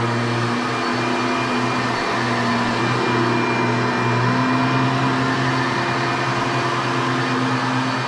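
A 1990s vacuum cleaner running steadily: a constant motor hum with a broad rush of air, holding an even level.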